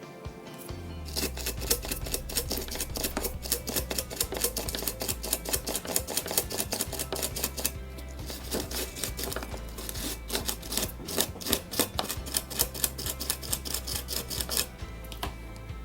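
Stiff brush scrubbing fast back and forth on a corroded battery spring contact, a rapid scratching rasp that starts about a second in and stops near the end. Background music plays under it.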